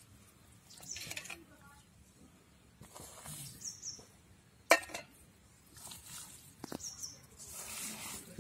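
Hand squeezing and kneading raw pork pieces with spice powder in an aluminium bowl, a wet squelching in short bursts, with one sharp knock about halfway through as the loudest sound.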